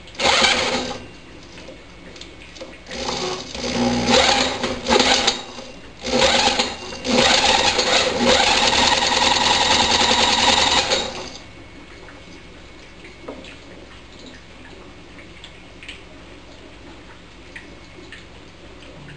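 Drill spinning a lawnmower engine's crankshaft in four bursts of whirring, the last about four seconds long, to crank it over on hydrogen (HHO) gas. The engine does not catch and fire.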